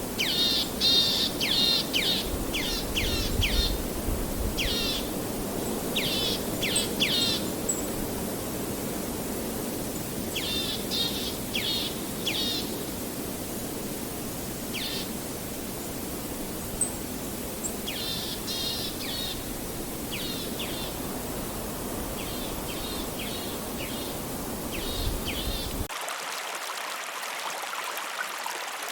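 A songbird singing short phrases of rapid high notes every few seconds over the steady rush of running river water. About three seconds before the end the birdsong stops and the sound cuts abruptly to a thinner, hissier stream rush.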